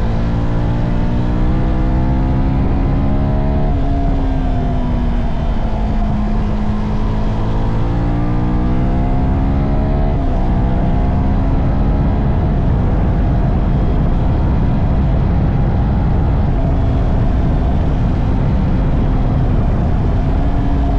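2022 CF Moto 300NK's single-cylinder engine running through its stock exhaust. Its pitch climbs and then drops suddenly about 4 and 10 seconds in, like revving up and shifting, with another rise near the end.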